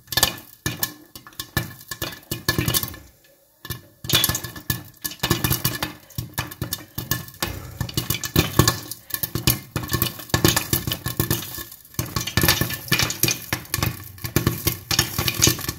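Popcorn kernels popping in a lidded pan with ghee and sugar, popped corn knocking against the glass lid: rapid irregular pops, scattered at first and coming thick and fast from about four seconds in.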